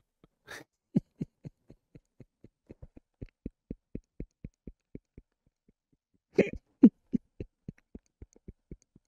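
A man laughing hard: a long run of short, low chuckles, about four a second. He draws a sharp breath in near the start, and again about six and a half seconds in, where the laughs are loudest.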